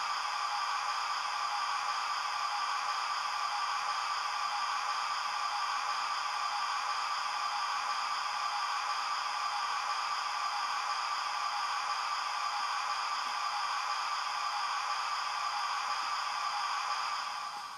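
Steady steam hiss of a standing locomotive, played by the factory-fitted TTS sound decoder through the small speaker of a Hornby Hogwarts Castle model locomotive, fading out near the end.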